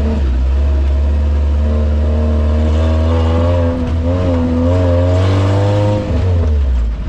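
Engine of a modified Suzuki 4x4 off-roader running under load over a dirt track, with a deep steady rumble and a pitch that wavers up and down as the throttle changes, easing off near the end.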